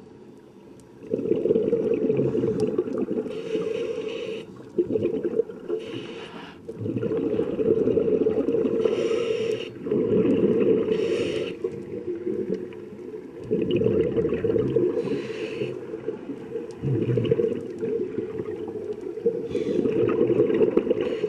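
Scuba diver breathing through a regulator, heard underwater: a short hiss on each inhale and a longer low bubbling rumble of exhaled air on each exhale, repeating about six times.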